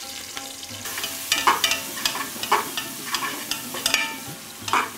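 Sliced onions sizzling in hot oil in a pressure cooker, with a metal slotted spoon scraping and clinking against the pot as they are stirred in repeated strokes.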